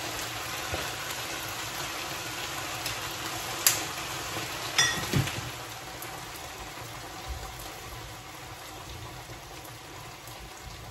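Rice, chicken and vegetables sizzling in a wok on a gas hob beside a simmering pan of curry sauce, a steady hiss that slowly fades. Two sharp clicks of a utensil on a pan come near the middle.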